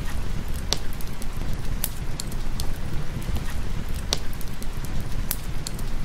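Fireplace crackling, with sharp pops of burning wood about once a second over a steady hiss of rain and a low rumble.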